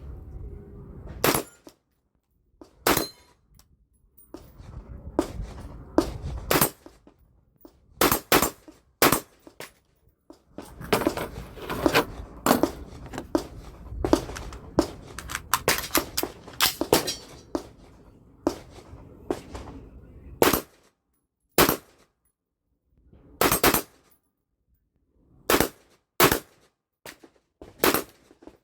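A string of sharp, irregular snaps and clicks from an AR-15 rifle, some in quick clusters, with low rumbling handling noise between them.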